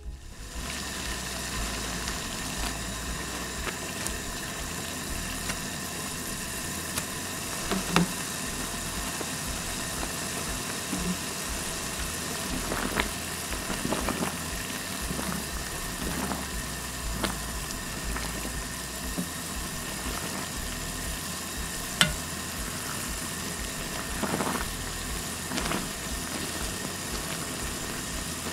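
Water boiling hard in a pan on a portable gas burner at high heat, a steady hiss. A few light clinks of a wire-mesh skimmer against the pan as fried tofu pouches are pushed under, the sharpest about eight seconds in and again near twenty-two seconds.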